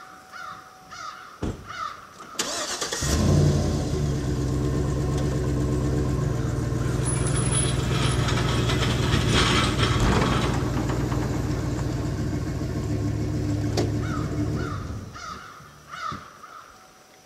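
Vehicle engine started about three seconds in and running steadily while the boat trailer is pulled out from under the aluminum boat, dying away about fifteen seconds in. A bird chirps repeatedly before the engine starts and again after it stops.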